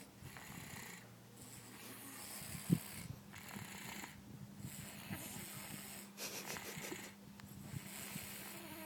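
Snoring in sleep: noisy breaths with short quiet gaps between them every one to three seconds, and one short, louder snort just under three seconds in.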